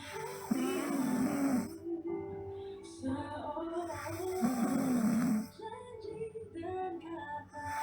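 A girl snoring: two rough, rattling snores about three and a half seconds apart, each lasting a little over a second, over background music.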